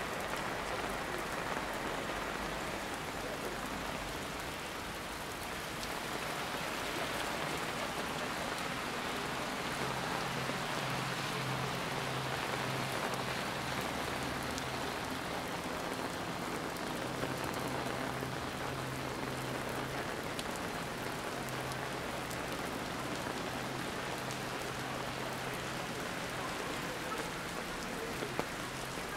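Steady rain falling, a continuous hiss with a fine patter of drops on surfaces. A low steady hum joins about ten seconds in and fades out near the end.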